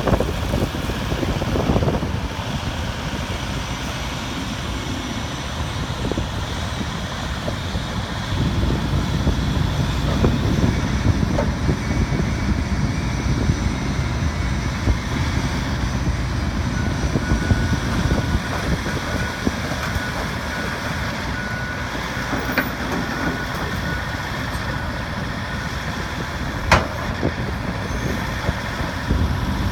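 John Deere 135D excavator's Isuzu 4JJ1 diesel engine running, its level rising and easing a little, with one sharp click about 27 seconds in.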